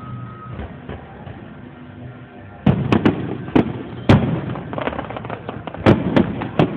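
Fireworks display: aerial shells bursting. After a quieter first couple of seconds, there is a run of sharp bangs with crackling between them.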